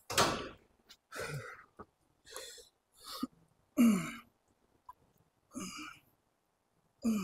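A man's short, forceful exhalations and grunts as he strains through leg-curl reps, about one a second, a couple of them falling in pitch like a groan.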